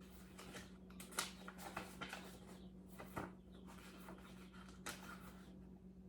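Faint handling noises: light rustling with a few soft clicks and taps, over a steady low hum.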